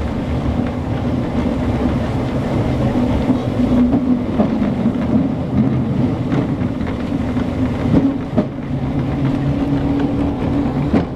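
Botchan Ressha, Iyotetsu's diesel-powered replica steam tram, running along street track, heard from inside the carriage: a steady engine drone and rumble, with the wheels clicking over the rails now and then.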